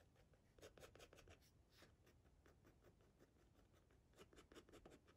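Faint scratching of a fine-tip Micron archival ink pen drawing quick, short hatch and squiggle strokes on paper. The strokes come in two flurries, about a second in and again near the end.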